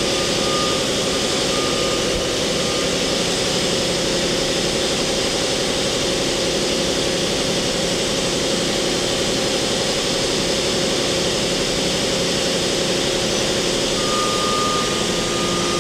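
Mori Seiki MT-2000SZ CNC turning/milling center running with its main spindle switched to C-axis mode: a steady mechanical hum and whine of motors and drives. A thin high tone comes in near the end.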